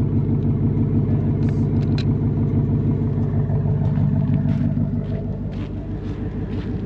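2024 Ford Mustang GT's 5.0-litre V8 idling steadily through a Steeda H-pipe exhaust, a deep, even burble that eases off a little about five seconds in.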